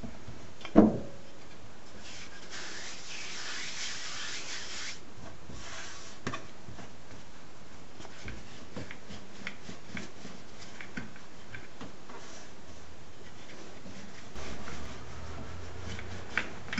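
Wooden rolling pin rolling out noodle dough on a floured counter: soft rubbing with scattered light knocks. One sharp thump about a second in, and a low hum near the end.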